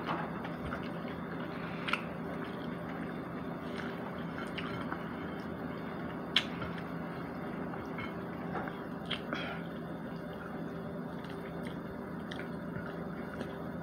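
Close-miked chewing and biting of fried chicken, wet mouth sounds with a few sharp clicks, over a steady faint hum.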